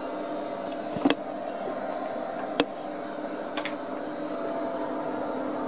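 Steady hum of an Amstrad PC2086 running, its fan and 30 MB RLL hard disk spinning. Three sharp clicks come about a second in, at two and a half seconds and at three and a half seconds: keyboard keys pressed to pick 'Park hard disk heads' from the menu.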